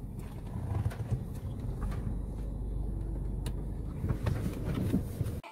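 Car cabin noise while driving slowly: a steady low engine and road rumble with a few light knocks, cutting off abruptly near the end.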